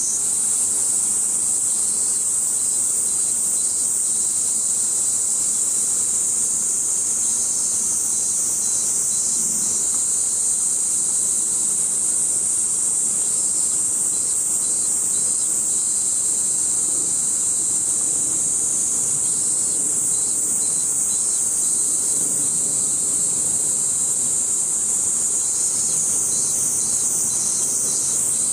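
Cicadas buzzing in chorus: a loud, steady, high-pitched drone with a faint pulsing texture.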